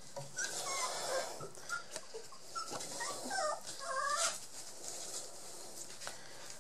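Young Border Collie puppies, about three weeks old, whimpering in short, high squeaks and whines, several in quick succession over the first four seconds, then quieter.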